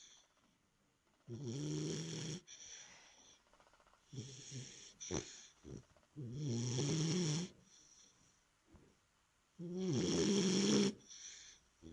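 A three-month-old pet snoring in sleep: four snores, roughly one every two and a half to three seconds, each a pitched drone lasting about a second, with softer breaths between them.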